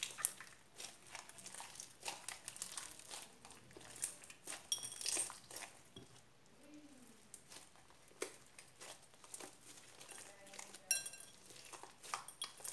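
Homemade beaded glitter slime being squeezed and pulled by hand: a run of soft sticky crackles and squelches, with a few short clinks against a glass bowl.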